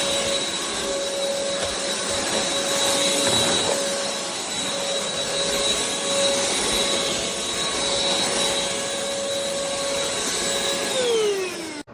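elezon A200 cordless stick vacuum running steadily, a whoosh of suction with a high motor whine. Near the end the motor pitch glides down as it winds down, then the sound cuts off abruptly.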